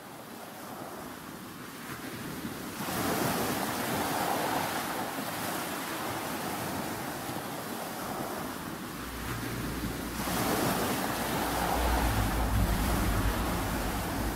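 Wind buffeting the microphone over rushing sea water, swelling in two gusts about three and ten seconds in. A low steady hum comes in during the last few seconds.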